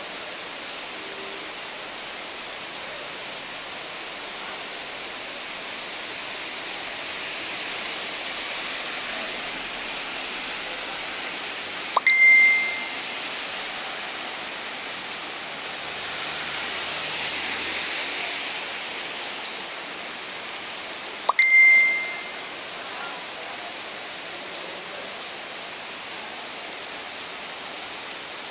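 Steady rain falling, swelling a little twice. Twice, about nine seconds apart, a sharp click with a short, high ringing ding cuts through; these are the loudest sounds.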